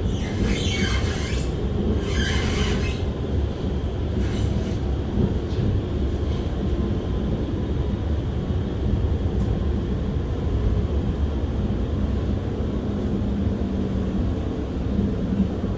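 An R151 metro train running, heard from inside the passenger car as a steady low rumble. Two short hissing bursts come in the first three seconds.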